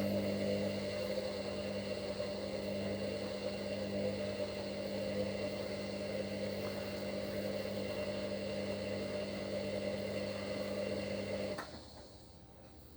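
Hoover HLW585DC washer-dryer running early in its rapid wash cycle: a steady motor hum with a higher whine, which stops abruptly about eleven and a half seconds in.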